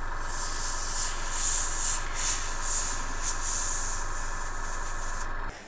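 An airbrush hissing in short spurts as it sprays thinned rust-coloured paint, over a small airbrush compressor running steadily. The compressor's hum stops abruptly near the end.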